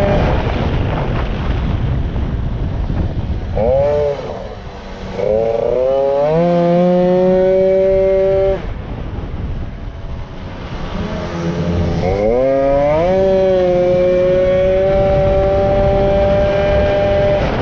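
Racing moped's two-stroke engine at full throttle, heard from on board over wind rushing past the microphone. The revs fall off a few seconds in and again about halfway, each time climbing back up to a steady high pitch.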